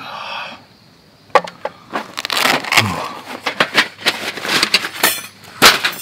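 Paper or plastic packaging crinkled and crumpled by hand: a dense run of sharp crackles starting about a second in.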